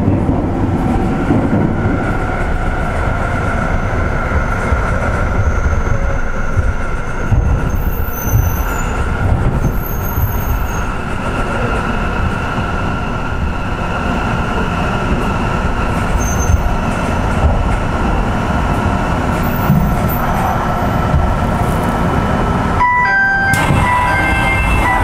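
Sendai Subway Tozai Line linear-motor train running, a steady low rumble of wheels on rail with a faint steady whine. Near the end a series of short electronic chime tones begins.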